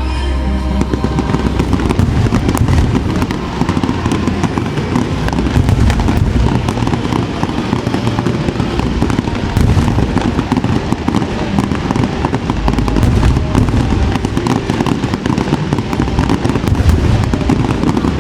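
Fireworks display going off: dense crackling and popping mixed with low booms, over the show's accompanying music.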